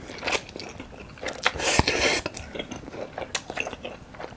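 Close-miked slurping and wet chewing of spicy instant fried noodles, with a longer slurp in the middle and a few sharp clicks of a fork.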